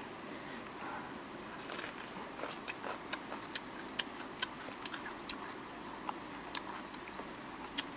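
Puppies chewing and biting at a grilled fish: irregular sharp clicks and smacks, a few a second, over a steady low hiss.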